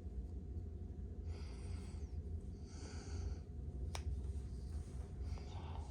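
A man breathing out twice near the microphone over a steady low hum, with one sharp click about four seconds in.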